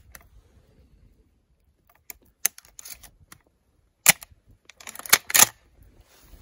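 Shotgun being loaded: a series of sharp mechanical clicks and snaps as shells are handled and pushed into the magazine, with the sharpest about four seconds in and a close pair near the end.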